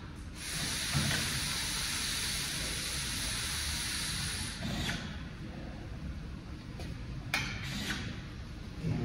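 A steady hiss for about four seconds that cuts off, then two short sharp clicks a couple of seconds apart.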